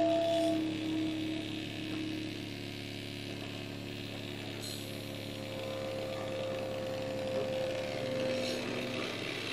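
Modular synthesizer and tape feedback drone through an analog mixer: a steady low hum under sustained held tones with a layer of hiss. One held tone fades out in the first couple of seconds, and a higher tone comes in about halfway and holds until near the end.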